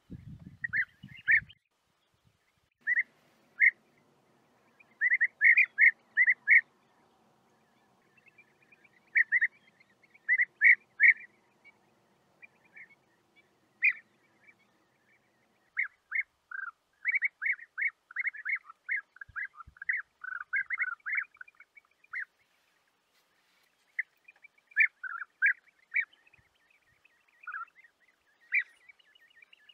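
European bee-eaters calling: short rolling 'prruip' notes, singly and in quick bunches of two to five, with a busier stretch of rapid, overlapping calls a little past the middle.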